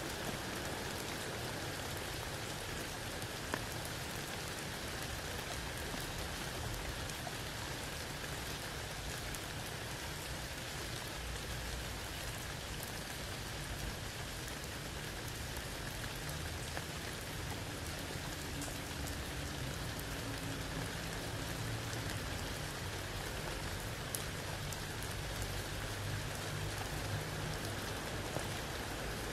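Steady rain falling under a tree onto wet ground and a puddle, with separate drops ticking here and there through the even hiss.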